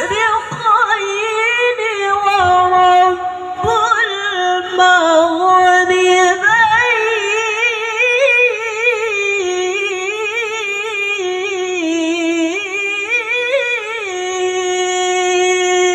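A woman reciting the Quran in the melodic tilawah (qiraah) style into a microphone: one long ornamented vocal line with rapid wavering turns, ending on a long held note.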